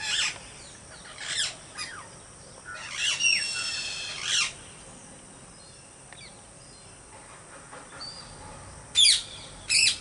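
Parakeets calling: short, high screeches that fall in pitch, a few single calls, then a longer string of calls a few seconds in, and two loud calls near the end.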